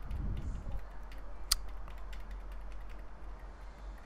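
Computer mouse in use: a run of faint ratcheting ticks from the scroll wheel and one sharper click about a second and a half in, over a steady low electrical hum.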